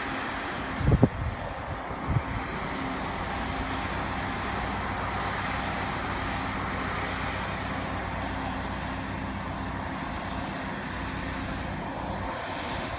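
Mount Washington Cog Railway locomotive climbing, a steady low engine hum that fades about ten seconds in, under a constant rush of noise. Two loud thumps come about one and two seconds in.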